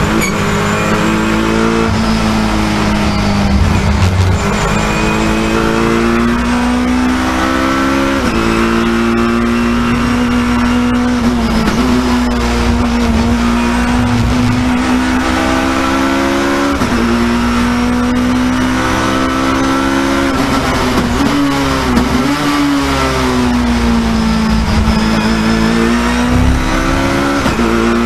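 BMW touring car's engine heard from inside the cockpit at racing speed, climbing in pitch through the revs and dropping at each gearshift, over and over as the car accelerates and slows through corners.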